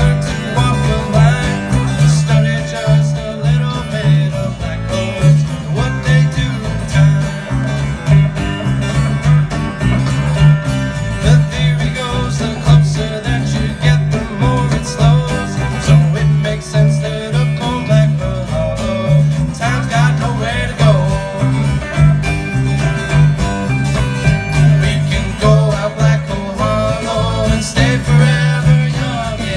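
Live bluegrass-style band playing an instrumental passage: acoustic guitars picking over hand drums, with a steady low pulse keeping the beat.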